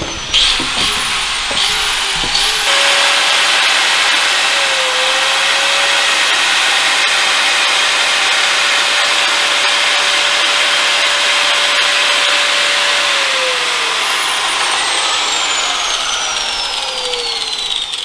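Electric angle grinder spun up in a few short blips, then running steadily at constant speed as it grinds at the car's roof from inside. About two thirds of the way through its pitch starts to fall as it is let off and winds down.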